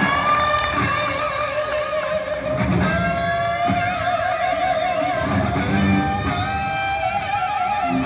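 Amplified electric guitar playing long sustained lead notes with wide vibrato and slow bends, over low bass notes.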